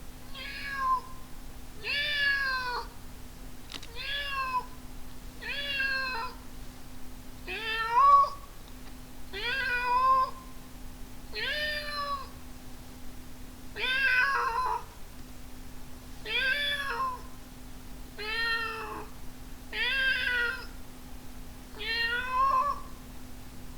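A man's vocal impression of a cat meowing: about a dozen drawn-out meows, each rising and then falling in pitch, spaced roughly two seconds apart. A faint steady hum runs underneath.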